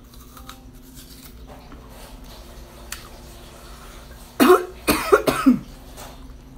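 A woman coughs in a quick run of four or five coughs about four and a half seconds in, after faint chewing sounds as she eats fruit.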